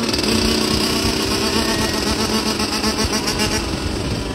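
Dirt bike engines running at held, fairly steady revs during a wheelie, giving a sustained buzzing tone.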